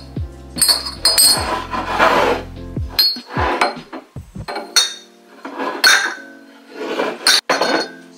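Glass and dishware clinking and knocking again and again as kitchen items are handled and put away, over background music with a bass line.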